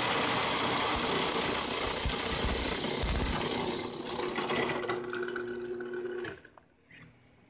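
Drill press running with its bit boring into a black block held in a drill-press vise: a loud, rough cutting noise that eases off about five seconds in. A steady motor hum follows and cuts off about six seconds in.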